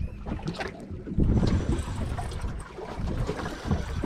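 Wind buffeting the microphone on an open boat at sea: a gusty, uneven low rumble.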